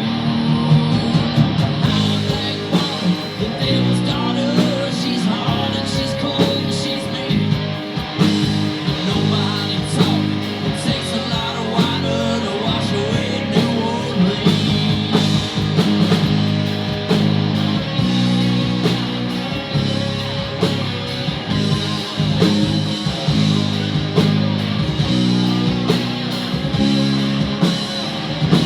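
Live rock band playing an instrumental stretch of a song, guitar to the fore over bass and drums.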